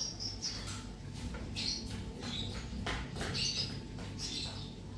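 Metal baking tray being slid out of a small electric oven over its wire rack, giving a series of short, high-pitched scraping squeaks and light clicks.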